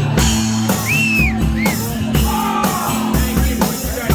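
Live rock band playing, with a drum kit keeping a steady beat under bass notes and short high melodic phrases that arch up and down.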